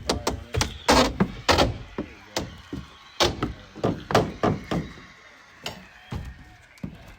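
Wooden boards being struck and knocked apart in demolition work: a quick, irregular string of sharp knocks and thuds, thinning out over the last couple of seconds.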